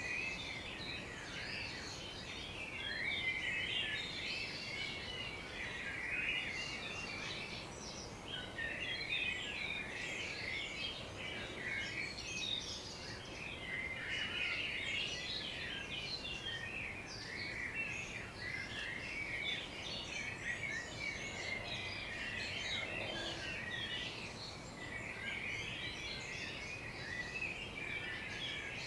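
Dawn chorus of garden birds: many birds chirping and singing at once, a dense, continuous overlap of short high chirps and trills.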